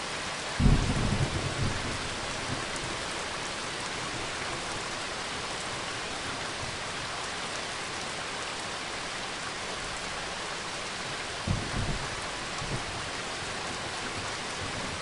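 Recorded rain-and-thunder ambience: steady rain, with a low peal of thunder starting about half a second in and lasting over a second, and a second, shorter one about eleven and a half seconds in.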